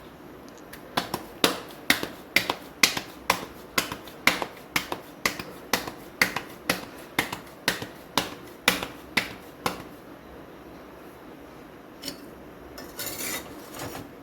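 Hands patting a ball of millet dough flat into a round bajri rotla, in an even rhythm of about two pats a second that stops after about ten seconds. A short scrape and a clink of a dish follow near the end.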